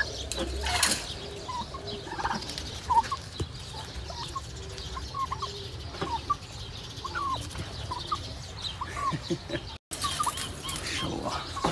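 Domestic turkeys calling in a pen: many short clucks and chirps, scattered irregularly over a low background rustle.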